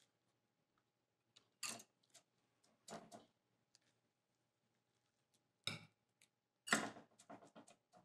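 Metal spoon scraping and tapping in a metal muffin pan and glass bowl as a sticky birdseed mixture is spooned into the cups: scattered short clinks and scrapes, the loudest cluster near the end.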